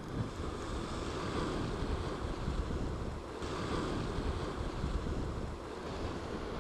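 Sea waves washing and breaking over rocks, with wind buffeting the microphone in a steady low rumble.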